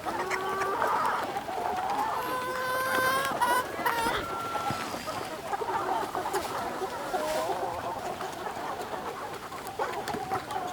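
A flock of free-range native chickens clucking and calling over one another, with several longer drawn-out calls a few seconds in.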